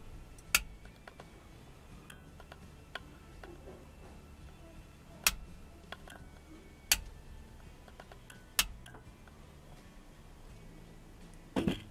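Wall-plate light switch being flicked on and off: about five sharp clicks spaced a second or two apart, with a quick cluster of clicks near the end.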